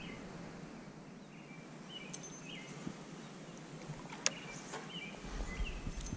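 Quiet riverside ambience with a small bird chirping short notes several times. A sharp click about four seconds in, and a low rumble near the end.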